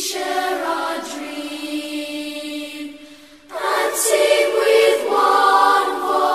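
Background vocal music: a choir singing long held notes, breaking off briefly and coming back louder on a new chord about three and a half seconds in.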